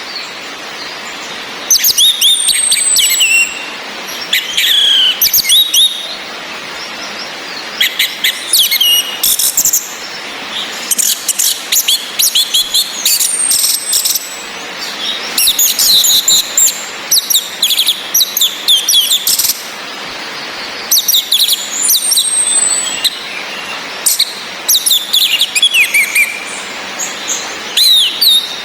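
Orange-headed thrushes calling and singing in repeated bursts of rapid, sharp, high notes, some sliding downward, over a steady hiss of rain.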